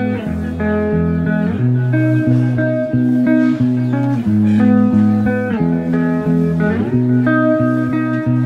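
Background music: a plucked guitar tune playing steadily.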